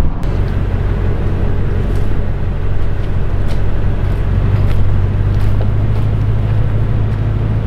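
Toyota vehicle's cabin drone from the engine and tyres while driving, a steady low hum with faint scattered clicks and rattles.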